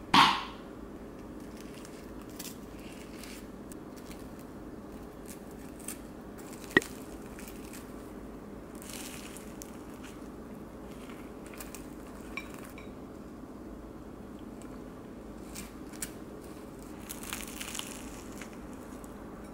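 Flaky croissant crust crackling and crunching as it is handled and eaten, in scattered soft bursts. A louder sudden burst comes right at the start and a sharp click about seven seconds in.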